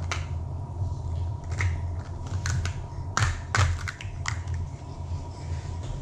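Plastic rings of a baby's stacking toy being handled, a few irregular light clicks and knocks as pieces are pulled off, set down and picked up, the sharpest just past the middle, over a steady low hum.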